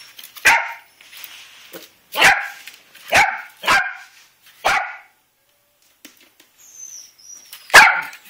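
Yorkshire terrier puppy barking at kittens in play: six short, sharp barks, five in the first five seconds and one more after a pause of about three seconds.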